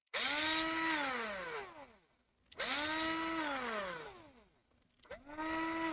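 Small electric screwdriver run in three short bursts about two and a half seconds apart: each starts with a hiss, whirs at a steady pitch, then winds down, falling in pitch as the motor coasts to a stop.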